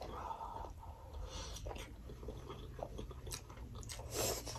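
Mouth sounds of people eating steamed mutton momos: chewing with scattered small clicks, and a slightly louder patch about four seconds in.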